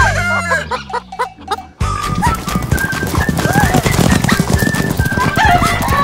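Rooster crowing and hens clucking over upbeat background music, which briefly drops out just under two seconds in.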